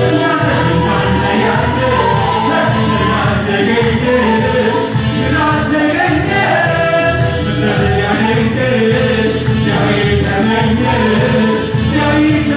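A choir singing a Christian worship song over instrumental accompaniment with a steady beat.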